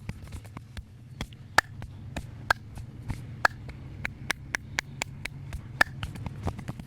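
Hand-percussion massage: palms and the edges of the hands slapping and chopping on the body in a quick, irregular run of sharp slaps, several a second, a few of them much louder, over a low steady hum.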